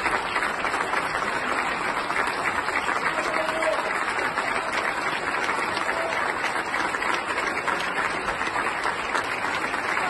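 Steady, sustained applause from a large audience clapping together in a big hall.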